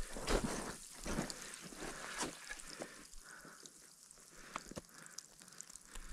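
Footsteps crunching in snow, a step about every second, growing softer after about two seconds into scattered light crunches.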